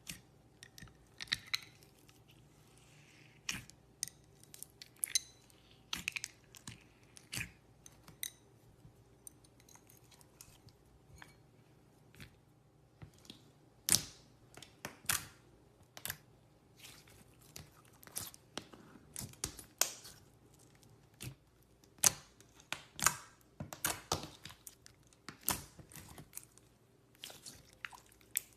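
Clear slime being handled, giving irregular sharp clicks and crackles, some singly and some in quick clusters.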